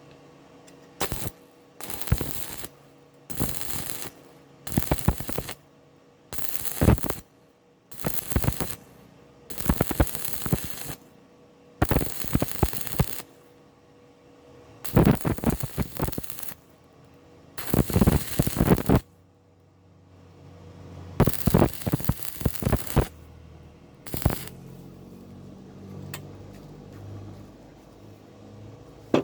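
Electric arc welding in short stop-start runs, about a dozen crackling bursts of half a second to two seconds each with brief pauses between, as weld is built up to close a cavity in iron. A faint low hum remains after the last short burst.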